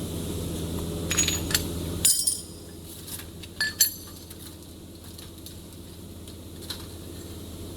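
Scattered metallic clinks and clatter of small steel parts such as bolts or tools being handled, a few at a time, over a steady low hum that cuts off abruptly about two seconds in.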